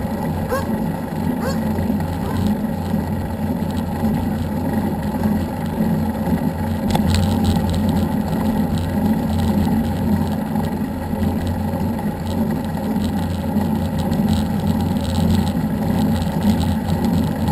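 A vehicle driving at a steady speed: its engine hums evenly under a constant rush of road and wind noise.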